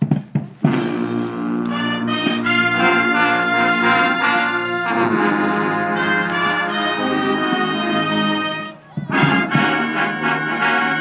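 Brass band playing held chords, starting about half a second in, breaking off briefly near nine seconds, then going on.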